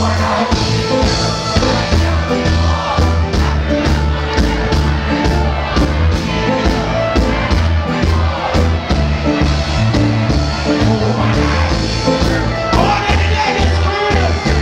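Live reggae band played loud through a club PA: a heavy, stepping bass line and steady drum hits, with a vocalist singing into a microphone over the crowd.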